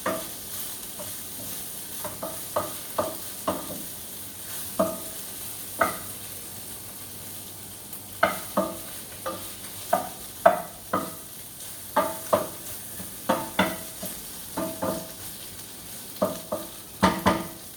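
Chicken sizzling in hot oil in a pan while being stirred. A utensil knocks and scrapes against the pan in irregular, ringing clinks, with a cluster of quick strikes near the end.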